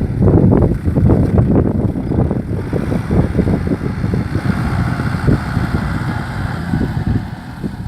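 Kubota M6040 SU tractor's diesel engine running under load while ploughing, with a loud, rapid clatter that is strongest in the first few seconds.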